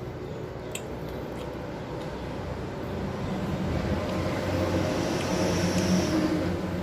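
A motor vehicle's engine passing by: a low engine hum that builds over a few seconds, is loudest near the end, then starts to fade. There is a single sharp click about a second in.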